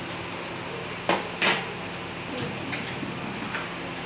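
Two sharp knocks about a third of a second apart, about a second in, from hard things striking at a table where boiled balut eggs are being cracked open and peeled.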